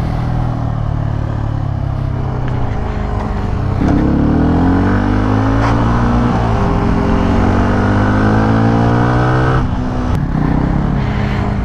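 Motorcycle engine running under way. The revs rise about four seconds in, hold steady, then drop off near the end as the throttle is closed.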